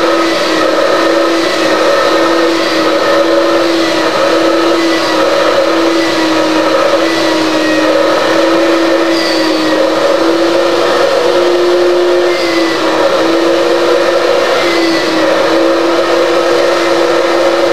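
Loud steady motor-like hum with one droning tone that wavers slightly in pitch.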